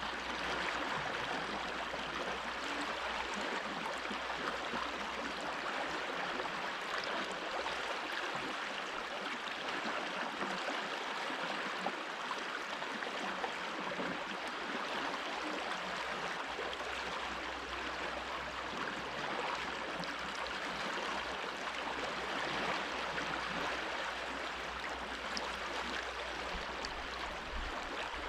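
Stream of running water flowing steadily, an even rushing and babbling.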